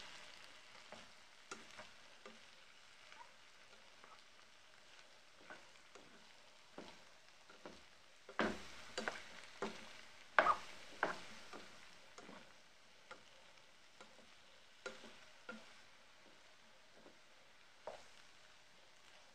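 White plastic spatula stirring fried potato chunks in a deep non-stick pan: irregular scrapes and knocks against the pan, loudest and busiest about halfway through, over a faint frying sizzle.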